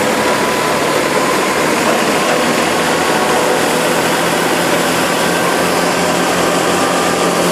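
A stationary crop thresher running steadily at full speed as sheaves are fed into it: a loud, even mechanical rushing noise from its spinning drum and the straw passing through, with a faint steady hum underneath.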